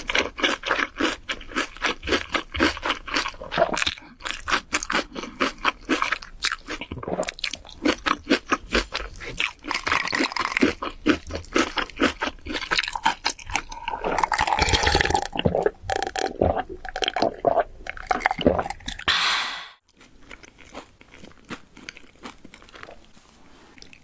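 A person biting and chewing crunchy food: rapid crunches several times a second. The crunching cuts off suddenly near the end, leaving only soft mouth sounds.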